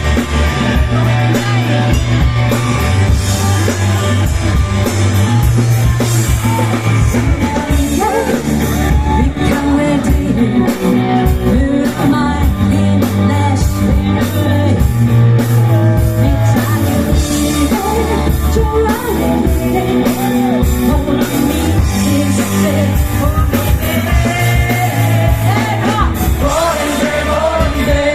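Live rock band playing loud and steady, with a singer's voice over bass, drums and amplified instruments, heard through a phone's microphone in the crowd.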